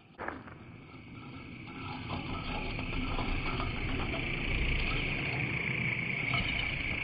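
Husqvarna Automower robotic mower passing directly over the camera, its blade disc spinning carpet-knife blades through the grass: a steady whir with a high-pitched whine that grows louder over the first few seconds and holds. A short knock sounds just after the start.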